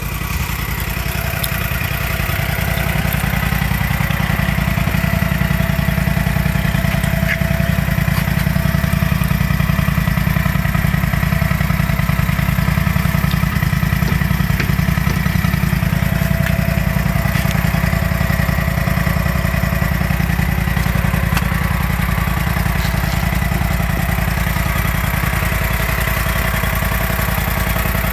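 Canycom SC75 tracked concrete buggy's engine idling steadily, heard up close.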